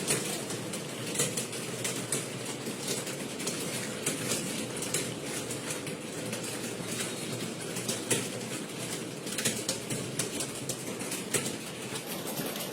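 Computer keyboards clattering under fast typing: a dense, irregular patter of key clicks over a steady background hiss.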